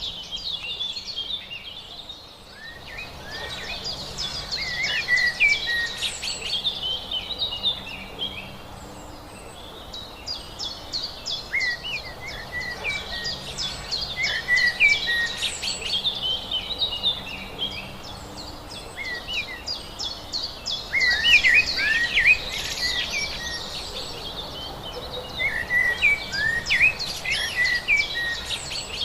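Several wild birds chirping and singing, their calls overlapping in quick chirps and rapid trills, over a steady background hiss. The birdsong thins briefly about two seconds in.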